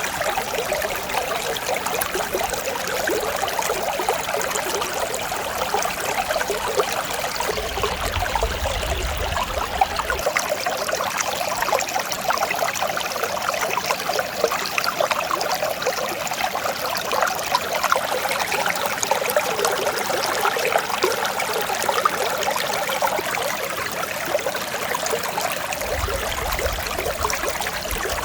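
Mountain stream flowing over rocks, a steady trickling and burbling of clear water.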